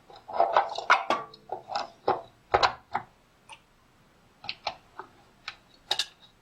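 Irregular clicks and small metallic clatter from hands working in the wire-feed compartment of a flux-core wire welder, fitting the drive-roll parts and handling the spool of welding wire. A busy run of clatter in the first second or so, then scattered single clicks.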